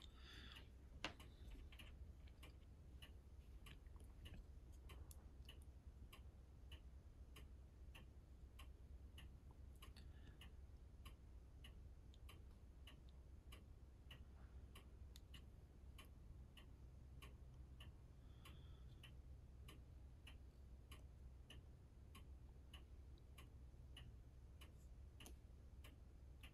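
Near silence: room tone with faint, even ticking at about two ticks a second, and one slightly louder click about a second in.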